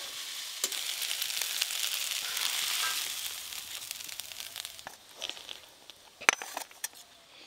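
Water spinach sizzling in hot mustard oil in a wok, the sizzle fading over the first four to five seconds as the fried greens are poured out onto a steel plate. A few light clicks follow, with one sharp metallic clink about six seconds in.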